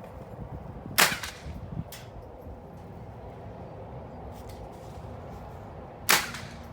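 Two gunshots from elsewhere on the indoor range, about five seconds apart, each a sharp crack with a short echo, with a fainter shot shortly after the first.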